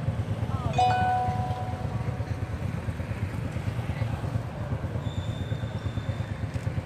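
Steady low rumble of a nearby motorbike or tuk-tuk engine idling. About a second in, a short horn-like pitched tone lasts about a second, and a thin high steady tone sounds for about a second and a half near the end.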